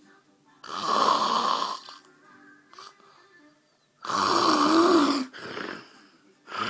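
A man snoring: two loud snores about three seconds apart, each lasting about a second, the second followed by a short, quieter breath, with another snore starting near the end.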